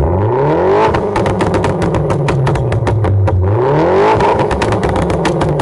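Modified 448-horsepower MINI Countryman's engine and exhaust revving up twice, each rise lasting about a second, with rapid sharp cracks through the exhaust note.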